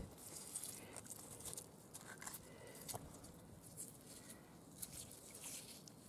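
Faint, irregular scraping and crunching of fingers digging a small stone out of wet mud and gravel.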